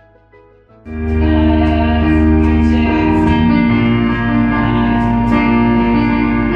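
Faint music, then about a second in loud live church band music cuts in suddenly: guitar with bass and drums playing steady chords.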